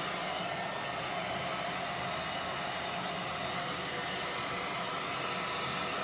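Makita cordless stick vacuum running steadily with its nozzle free in the air: an even rushing hiss with a faint thin high whine over it.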